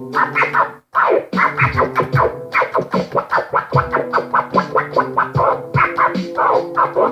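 Music made of fast scratching strokes, several a second, over held low notes, with a brief dropout just under a second in.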